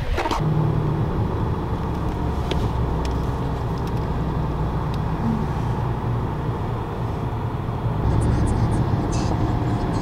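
Porsche Macan S driving at a steady pace: a constant low drone of engine and road noise.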